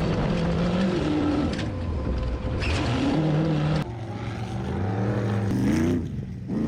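Off-road vehicle engines revving up and down on the dunes, with abrupt changes about four and six seconds in.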